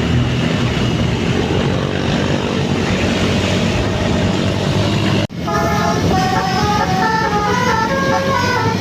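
A bus engine running with a steady low drone, then, after a sudden break about five seconds in, a telolet horn plays a quick tune of short stepped notes, several sounding together.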